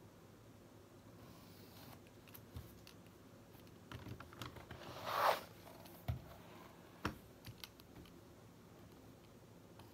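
Desk handling sounds: scattered small clicks and taps of pens being picked up and set down, and one brief rustling swish of paper about five seconds in as a spiral notebook is moved, followed by two sharper clicks.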